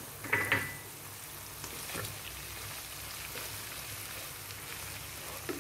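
Onions, green chillies and freshly added chopped tomatoes sizzling steadily in hot oil in a pan. A slotted spatula scrapes through them a few times as they are stirred.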